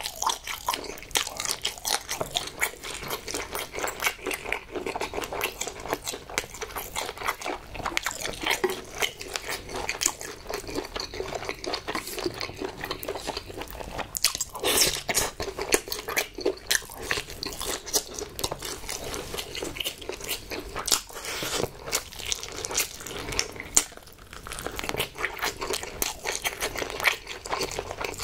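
Close-miked chewing of braised pig's trotters (jokbal): the chewy, gelatinous skin and meat worked in quick, dense bites and chews, with one louder sharp noise about halfway through.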